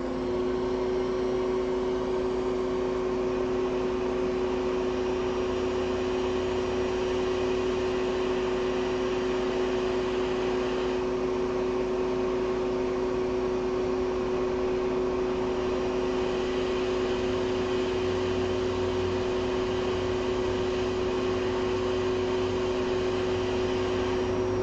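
Hot air rework station blowing steadily with a constant whine over a hiss of air, heating a BGA chip to reflow the solder beneath it.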